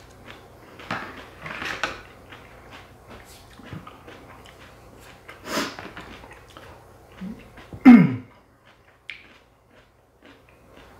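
A person eating buckwheat noodles: slurping and chewing with small clicks of chopsticks against a plastic container. About eight seconds in comes the loudest sound, a single short, low throat sound that falls in pitch.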